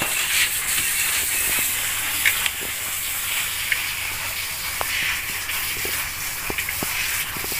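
Caulking gun squeezed to run silicone sealant into a tile corner, its trigger and plunger giving scattered sharp clicks over a steady hiss.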